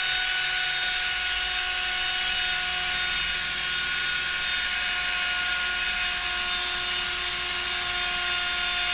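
Power drill running at a steady full speed, scrubbing grime out of tile grout lines: an even motor whine over a scrubbing hiss.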